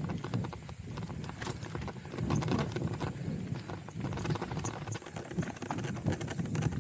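Chromag hardtail mountain bike rolling fast down a rocky dirt singletrack: tyres rumbling over dirt and rocks, with a constant clatter of knocks and rattles from the bike over the rough ground.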